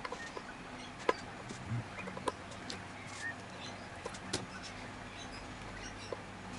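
Scattered light clicks and taps of small metal parts and tools being handled at a tubular key cutting machine while it is adjusted, over a low steady hum. The sharpest clicks come about a second in, a little over two seconds in and a little over four seconds in.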